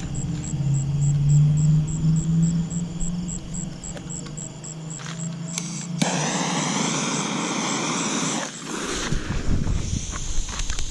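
A low steady hum, then about six seconds in a sudden sharp hiss that lasts about two and a half seconds and stops: a firework's fuse burning after being lit.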